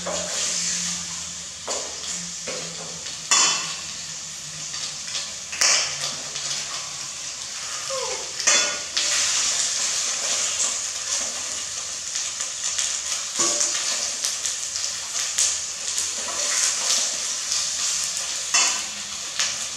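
Food frying with a steady sizzle in a stainless steel pot on a portable gas stove, stirred with a metal ladle that clinks sharply against the pot several times.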